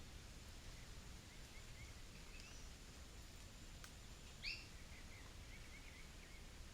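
Faint bird chirps over a quiet outdoor background, a scatter of soft short notes, with one louder, sharper call about four and a half seconds in.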